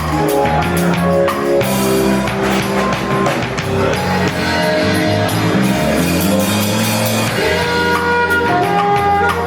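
A live band playing: drum kit, bass and guitar with sung vocals, in a large room.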